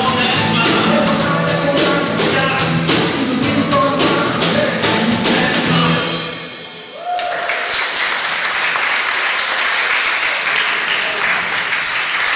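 Live band of guitars and drums finishing a song, the music dying away about six seconds in; then the audience applauds steadily.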